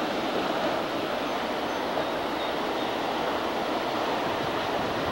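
Steady rush of river water tumbling through a whitewater riffle.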